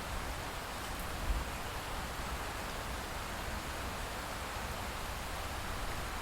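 Light rain falling steadily after a thunderstorm, a continuous even hiss with dripping; a single faint drop tick about a second in.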